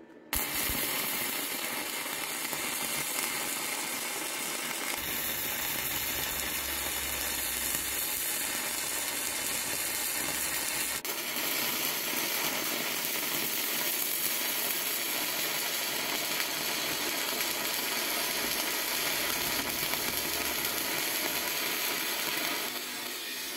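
An electric welding arc crackling and hissing steadily as metal is welded onto a rusty bayonet clamped in a vise.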